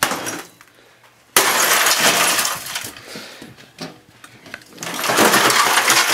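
A Macintosh Classic II computer being smashed. A sudden crash of breaking glass and plastic comes about a second in and trails off as debris settles, then a second burst of breaking comes near the end.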